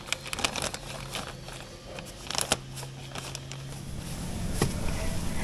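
Rustling, crinkling and scattered sharp clicks of protective wrapping and tape being pulled off and cut, over a low steady hum that stops about four seconds in.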